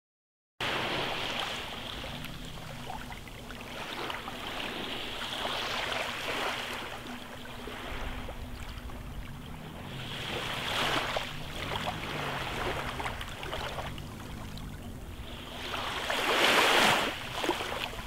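Small waves washing onto a sandy beach, swelling and falling back every few seconds, loudest near the end, with a faint steady low hum underneath.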